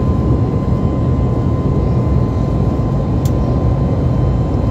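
Steady cabin noise of a Boeing 737 MAX 8 in its climb after takeoff: the CFM LEAP-1B turbofans and rushing air heard from inside the cabin, deep and even, with a thin steady tone above it. A brief click about three seconds in.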